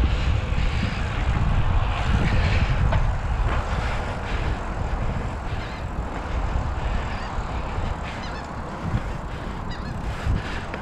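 Wind buffeting the microphone and tyre rumble while riding a fat-tyred 29-inch BMX bike.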